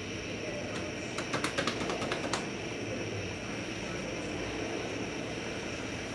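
Steady rush of hurricane rain and wind, with a quick run of sharp ticks between about one and two and a half seconds in.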